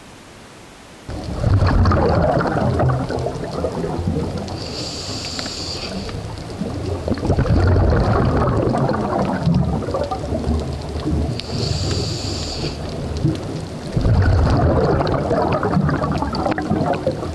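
Scuba diver breathing through a regulator underwater: three long rumbling gushes of exhaled bubbles, with a short hissing inhale between them, roughly every six seconds.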